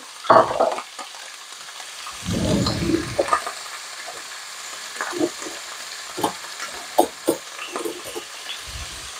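Shredded chicken frying in hot olive oil in a pan: a steady sizzle with scattered pops and crackles, a louder burst just after the start and a brief low rumble between two and three seconds in.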